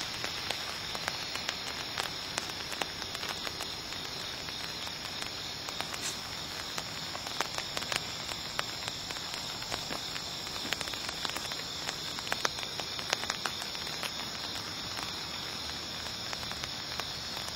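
Rain falling: scattered sharp drop ticks over a steady hiss.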